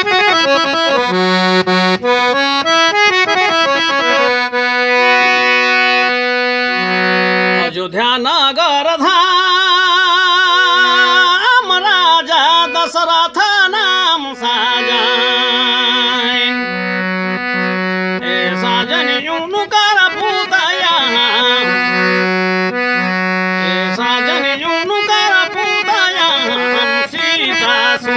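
Instrumental folk-music passage led by a free-reed instrument playing held chords and a melody. About eight seconds in, a wavering melody line with vibrato joins it.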